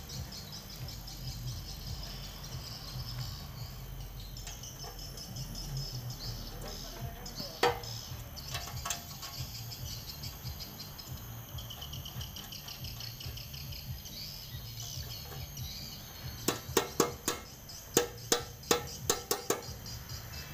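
Insects chirping over a low steady hum, with a single knock about a third of the way in. From about 16 seconds in, a quick run of sharp metallic taps, about three a second: a small hammer striking a tool held against a steel oil pan at its newly welded drain-plug nut.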